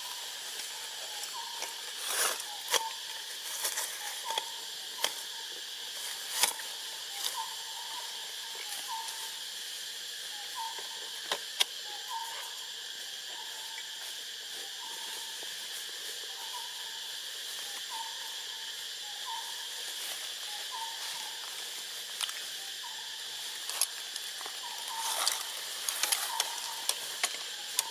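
Tropical forest ambience: a steady drone of insects, with a bird repeating a short hooting note at an even pace, a little more than once a second. Scattered sharp clicks and rustles come through as well, busiest near the end.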